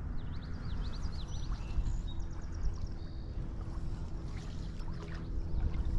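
Steady low wind rumble on the microphone outdoors. Over it, a bird gives a quick run of high chirps in the first few seconds.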